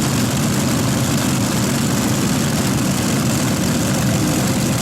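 Heavy Modified pulling tractor's engines running loud and steady, with a deep, even rumble and no break.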